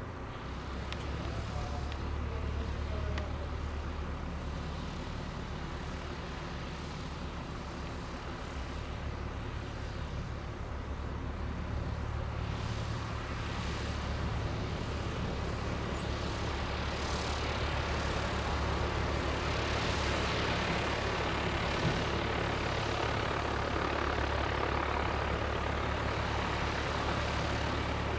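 Robin DR400 single-engine light aircraft, its piston engine and propeller droning steadily and growing louder from about halfway through as the plane comes in to land.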